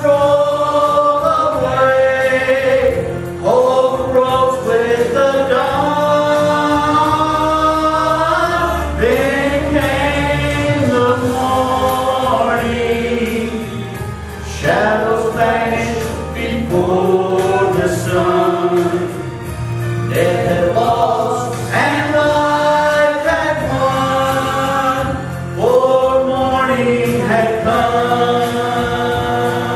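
Gospel song sung as a duet by a woman and a man into microphones, with long held notes over a steady low accompaniment.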